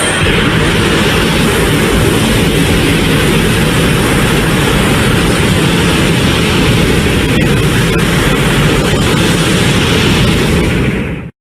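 Burning Godzilla's atomic breath (heat ray) sound effect: a loud, steady rushing blast with a deep rumble underneath, held for about eleven seconds and then cutting off near the end.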